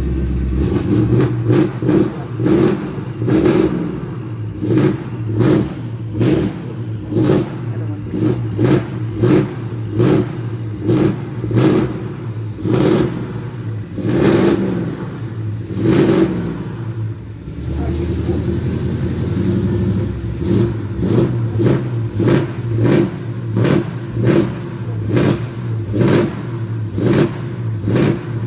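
Old square-body Chevy pickup's engine running under load, revving in regular surges about one and a half times a second, with a short dip about two-thirds of the way through.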